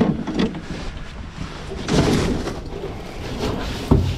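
Irregular knocks and thumps on a drift boat's floor as a netted steelhead is handled in the landing net. There is a short rustling burst about two seconds in and a heavy low thump near the end.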